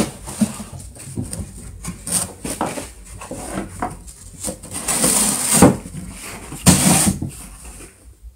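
Cardboard box rustling, scraping and tearing in irregular bursts as a baby pig-tailed macaque bites and pulls at its torn edge, with two louder bursts in the second half.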